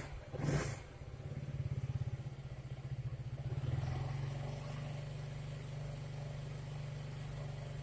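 KTM Duke 200 single-cylinder four-stroke engine revved with the throttle: a quick blip just after the start, then held a little higher for about three seconds before settling back to a steady idle. The revving is done while the battery charging voltage is measured, which holds at about 14.3 V, showing the regulator is working.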